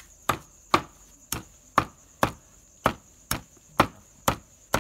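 Heavy cleaver chopping on a thick wooden chopping block, mincing grilled white log mushrooms: even, sharp strokes at about two a second. Crickets chirp steadily underneath.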